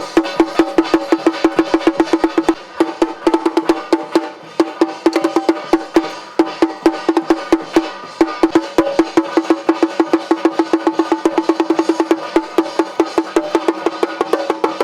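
Fast procession percussion: a hard, pitched wood-block-like strike beaten about six or seven times a second, with a few short breaks in the beat.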